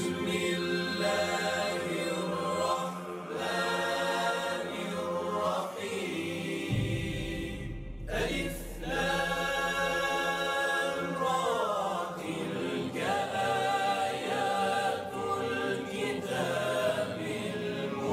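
Wordless choral vocal music: voices holding long notes that slide between pitches, in phrases a few seconds long. A low bass layer comes in about a third of the way through and drops out around two-thirds.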